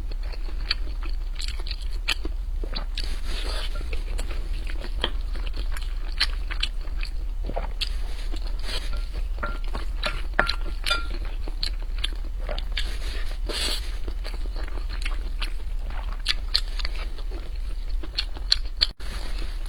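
Close-miked chewing and mouth sounds of someone eating mapo tofu over rice: many small wet clicks and smacks throughout, over a steady low hum.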